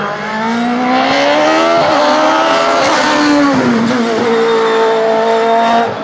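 Osella FA30 single-seater sports-prototype race car accelerating hard at full throttle, its engine note climbing and dropping sharply twice, about two and three and a half seconds in, as it shifts up, then holding a steady high note.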